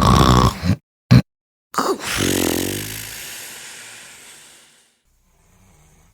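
A person snoring: a loud snort, a brief second one about a second later, then a longer snore from about two seconds in that fades away over a few seconds.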